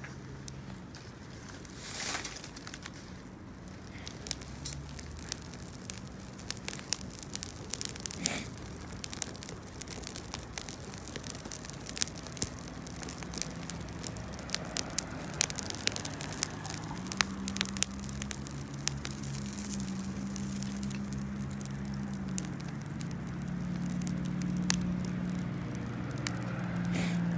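Wood campfire crackling, with many sharp snaps and pops, over a low steady hum.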